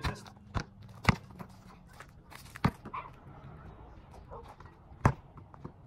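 Basketball bouncing on an outdoor asphalt court: five separate sharp thuds at uneven intervals, three of them close together at the start and the last about five seconds in.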